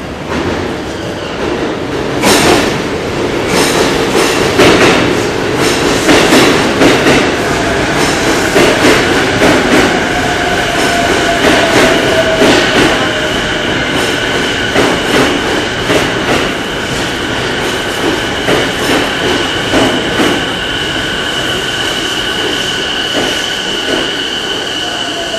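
JR Keihin-Tohoku/Negishi Line electric commuter train arriving at a platform and slowing to a stop, its wheels clacking over rail joints. A falling whine comes about ten seconds in, then a steady high squeal as it slows.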